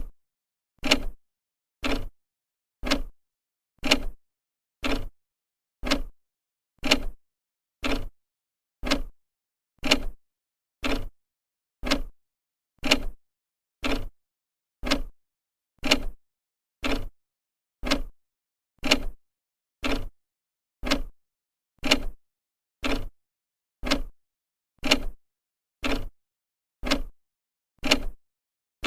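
Old clock's second hand ticking steadily, one sharp tick about every second with silence between.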